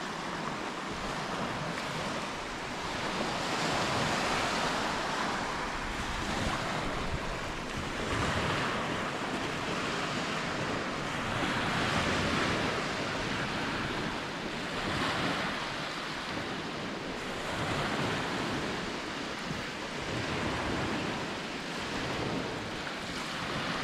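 Small waves breaking and washing up a shingle beach, the surf swelling and easing every few seconds, with wind buffeting the microphone.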